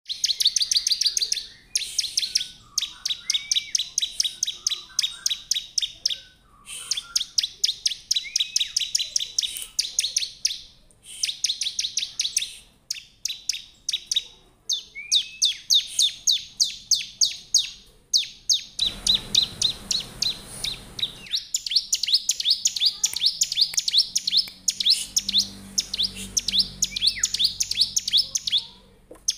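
Bar-winged prinia (ciblek) singing hard: long runs of rapid, sharp, high chip notes, many a second, broken by short pauses. A brief rustling noise sounds under the notes about nineteen seconds in.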